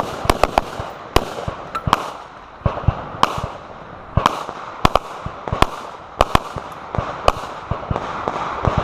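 Gunshots from several shooters on a firing line, single sharp reports at irregular spacing, some louder and some fainter, roughly one to three a second.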